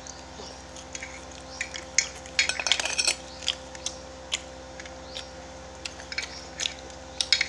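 Eating sounds close to the microphone: scattered sharp clicks and crackles, thickest about two and a half to three seconds in, from chewing fried sausage and utensils clinking on a plate.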